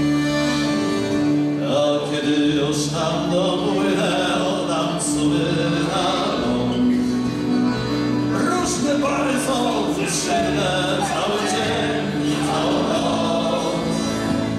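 Male shanty choir singing a sea shanty.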